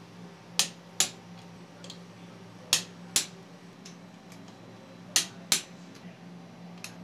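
Click-type torque wrench breaking over at its set torque as the pendulum jaw bolts are tightened to spec: three pairs of sharp clicks, each pair about half a second apart, over a steady low hum.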